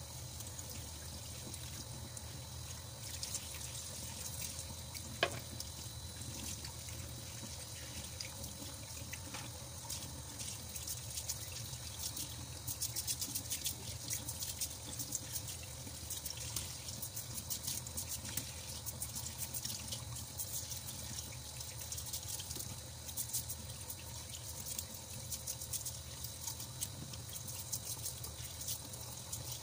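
Tap water running into a stainless steel sink while soaked, spiny dried sea cucumbers are scrubbed by hand with a small brush under the stream. There is a quick busy rasping of scrubbing strokes through the second half, and a single sharp knock about five seconds in.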